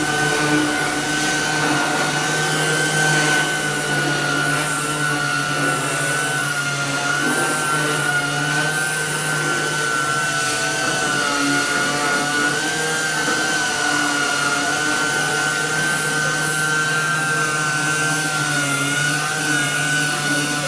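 Power sander running continuously on a surface being prepared for paint, a steady high whine that wavers slightly in pitch over a hiss of abrasion.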